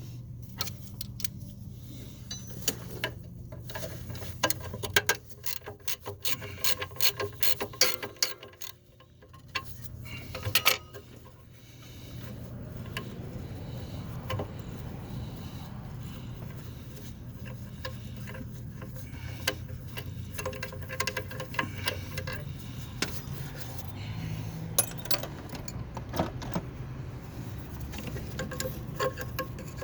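Ratchet wrench turning bolts on a car engine: quick runs of sharp metallic clicks, densest in the first third, with a few more near the end, over a steady low hum.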